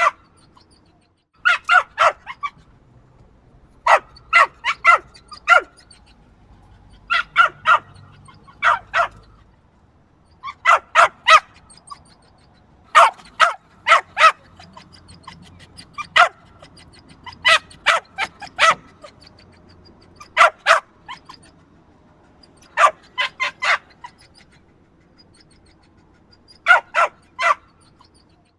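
Small yappy dog barking in quick bursts of two to five sharp, high barks, with short pauses between the bursts.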